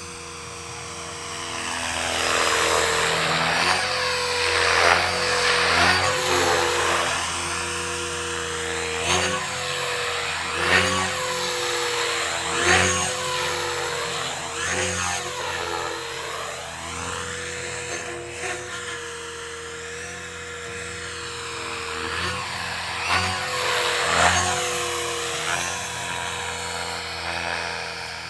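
Align T-Rex 500 electric RC helicopter flying: a steady high motor and rotor whine that swells and fades as it makes repeated close passes, its pitch sweeping up and down with each pass.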